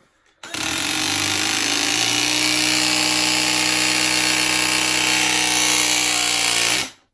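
Battery-powered press tool crimping a copper press-fit T fitting onto copper pipe. Its motor starts about half a second in, dips slightly in pitch over the first second or two, runs steadily, then cuts off suddenly near the end as the press cycle completes.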